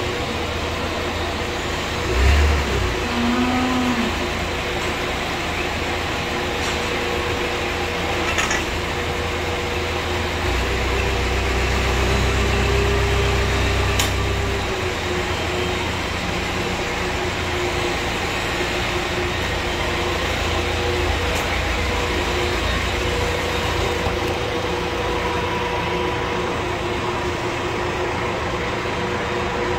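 Tractor engine running steadily as its front loader lifts and carries a straw bale, with a deeper, stronger rumble from about ten to fifteen seconds in as the engine works harder. A single thump about two seconds in.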